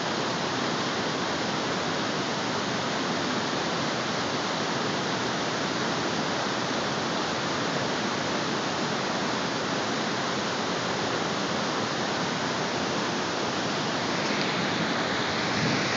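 Large waterfall, a steady, loud rush of falling water and spray.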